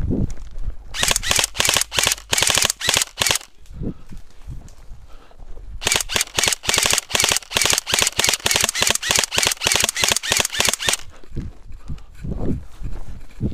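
Airsoft rifle firing two long strings of rapid shots, one about a second in lasting a couple of seconds and a longer one about six seconds in lasting around five seconds. Footsteps and rustling through grass are heard between and after the strings.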